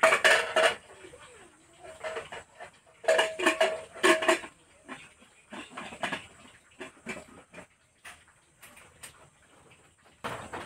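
Metal pots and utensils clinking and clattering in irregular bursts as they are handled on a kitchen table, some strikes ringing briefly.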